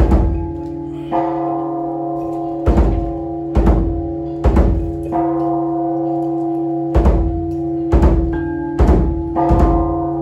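Large temple barrel drum beaten roughly once a second, over a big bell that is struck about every four seconds and rings on with a deep, steady tone between strokes.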